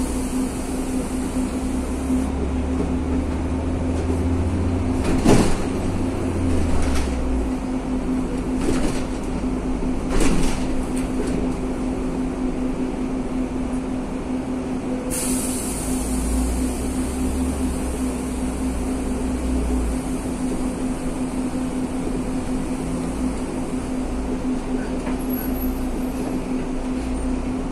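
Inside a city bus moving slowly through traffic: a steady engine rumble and hum. There are a few short knocks and rattles about a quarter to a third of the way in, and a high hiss comes in around halfway.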